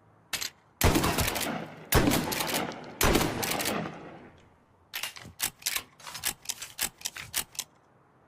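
Cornell 40 shotgun sound effect: three loud shots about a second apart, each trailing off, followed by a run of quick sharp mechanical clicks like shells being loaded.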